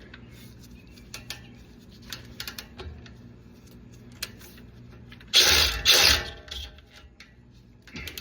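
Metal tools and hardware clicking and clinking while brake parts are worked on with a 12 mm socket, then two short, loud bursts of noise about five seconds in, each under half a second, close together, over a faint steady hum.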